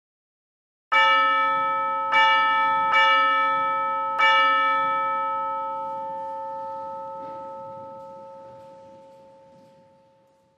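A bell struck four times on the same note, the strikes about a second apart, then left to ring and fade away slowly over several seconds.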